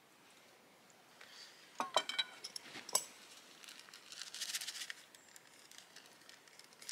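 Metal camping cookware clinking: a few sharp, ringing knocks about two to three seconds in, followed by a short rustle of handling.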